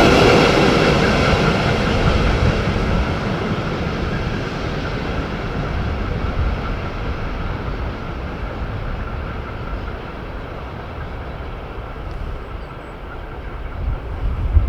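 Loaded ore freight train rolling along the track, its even rumble fading steadily as it draws away. A low rumble swells just before the end.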